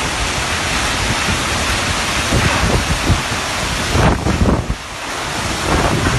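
Strong storm wind gusting and buffeting the microphone: a loud, continuous rush of noise with rumbling low thumps from the gusts, easing briefly about three-quarters of the way through.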